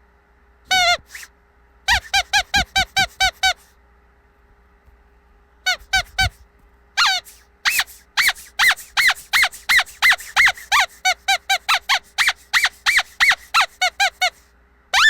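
Rubber squeaky dog toy being squeezed repeatedly: short high squeaks that bend in pitch, a quick run of them, a pause, then a longer fast series of squeezes of about three a second.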